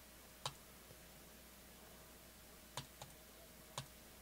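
Four short computer mouse clicks in near silence: one about half a second in, then a quick pair and a last click near the end.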